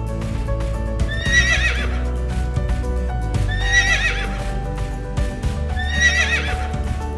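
Horse whinnying three times, the same quavering call of about a second repeated, over background music with steady low notes.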